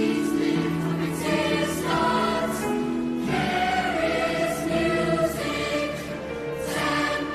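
A mixed-voice secondary-school choir singing in parts in a concert hall, many voices holding chords that change every second or so.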